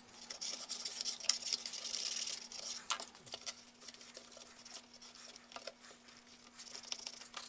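Toothbrush bristles scrubbing a PVC multimeter case: a scratchy brushing with scattered clicks, heavier in the first couple of seconds and lighter after. A faint steady hum runs underneath.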